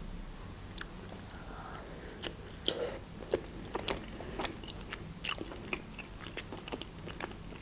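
A person chewing soft slices of boiled beef tongue, with scattered short wet mouth clicks.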